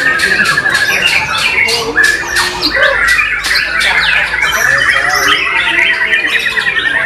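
White-rumped shama (murai batu) singing loudly amid a dense chorus of other contest songbirds: rapid trills and sharp repeated notes overlap without a break.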